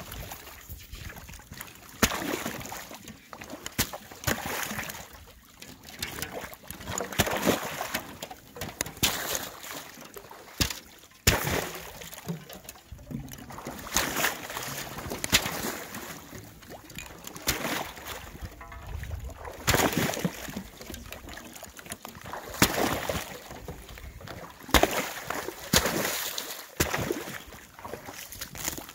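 Thin skim ice on open water being broken up: irregular sharp cracks and knocks of breaking ice, with splashing and sloshing water throughout and a few louder cracks along the way.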